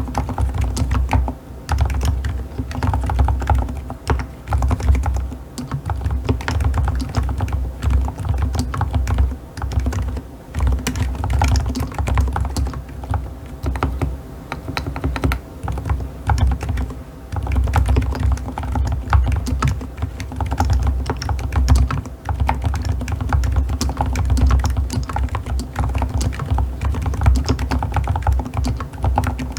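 Typing on a Keychron K8 Pro Max mechanical keyboard with K Pro silent white switches: a rapid, continuous run of keystrokes with deep thuds under the clicks, pausing briefly now and then.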